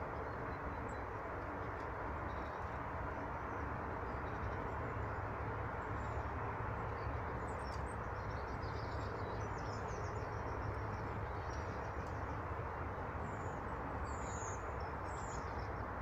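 Steady outdoor background rumble with faint, high small-bird chirps scattered through it, a cluster about midway and a few more near the end.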